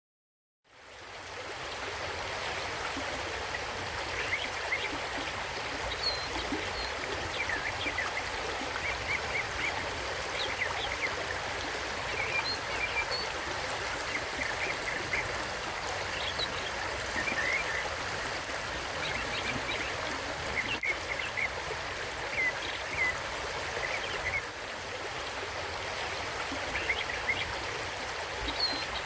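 Mountain stream running steadily, fading in just after the start, with short high bird chirps scattered throughout.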